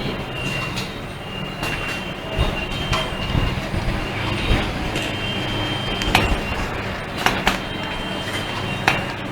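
WTS-2E automatic soldering machine for chokes and transformers running: a steady mechanical hum with a high tone that comes and goes and a few sharp clicks, the loudest about six seconds in and a quick pair about a second later.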